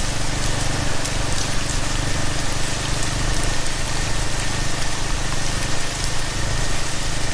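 Rain falling steadily, with a Royal Enfield Himalayan's single-cylinder engine running at an even pitch underneath.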